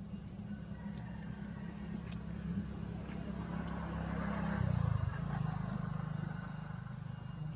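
Motor vehicle engine hum with road noise that swells and fades a little past halfway through, as a vehicle passes.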